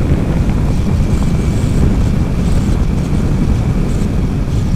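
Steady rush of wind buffeting the microphone on a motorcycle riding at speed, with the bike running underneath.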